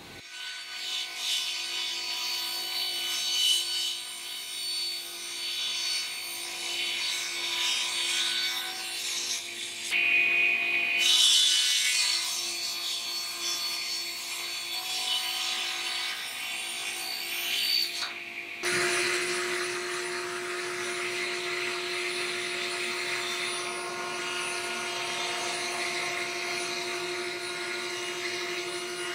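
Table saw with a sliding table running and crosscutting hardwood rails to length. About two-thirds of the way through it switches abruptly to a router table's router spinning with a steady, even whine.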